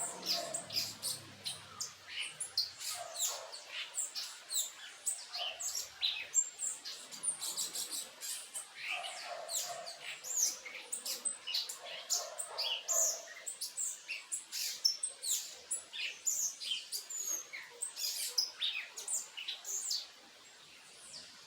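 Backyard birds chirping, a dense chorus of many short, high chirps overlapping without a break, which stops about twenty seconds in.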